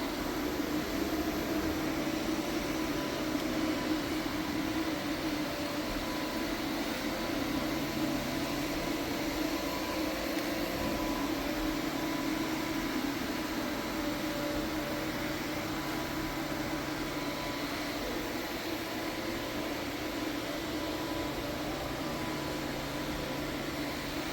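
UV curing machine running over a freshly finished hardwood floor: a steady fan-like hum with a few faint steady tones, unchanging throughout.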